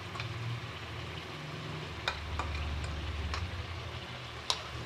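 Chicken frying in masala, sizzling faintly in the pan as whisked yogurt is poured in, over a low steady hum, with a few light clicks.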